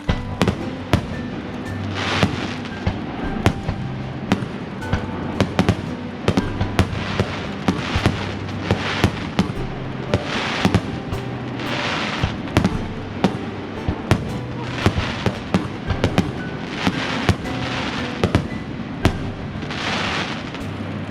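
Aerial fireworks going off: a rapid series of sharp bangs, with several stretches of crackling hiss about two, ten, twelve and twenty seconds in. Music with held notes plays underneath.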